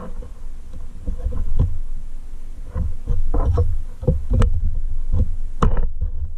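Close-up handling sounds of a clear plastic panel being pried and flexed off a plastic box with a knife: dull low knocks and rubbing against the wooden board, with a few sharp plastic clicks, the loudest a little past halfway and about a second before the end.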